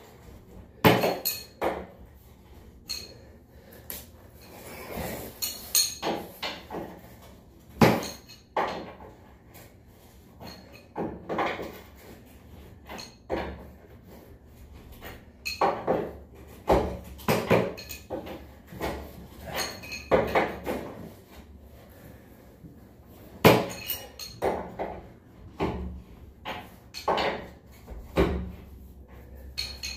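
Irregular metallic clinks and knocks of hand tools, a wrench among them, working at a glass door's bottom pivot hinge and set down on a tile floor. A few sharper knocks stand out among lighter clinks.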